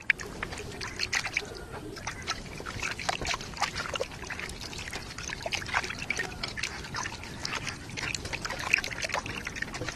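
Water sloshing and splashing in a metal basin as hands rub and rinse raw chicken pieces, with many small quick splashes and drips.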